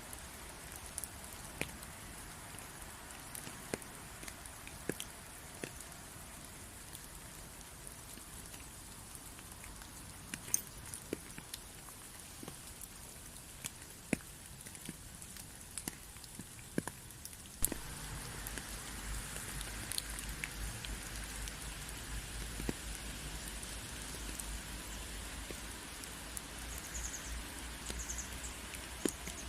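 Rain falling steadily, with scattered sharp drop ticks. A little over halfway through it changes abruptly to a denser, slightly louder rain with a low rumble underneath.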